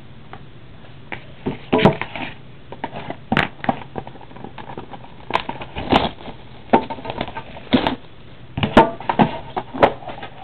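Clear plastic shrink wrap crinkling and tearing as it is stripped off a box of trading cards, in irregular sharp crackles.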